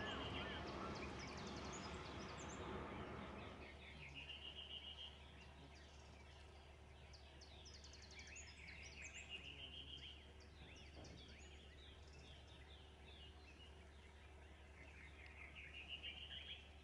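A hot-air balloon's propane burner firing with a steady rushing roar for the first three to four seconds, then cutting off. Birds sing throughout, one repeating a short run of notes that rise and then fall, four times.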